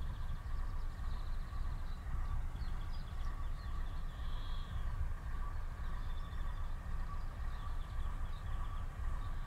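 Steady low outdoor rumble with a faint constant hum, and small birds chirping and trilling now and then over it.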